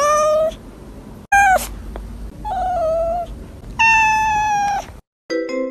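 A cat meowing close up, four separate calls, the last one the longest and highest. Near the end a few notes of mallet-percussion music start.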